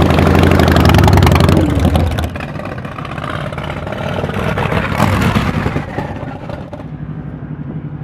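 Motorcycle engines running: a loud, deep engine note that drops away about two seconds in, another swell about five seconds in, then a quieter steady idle near the end.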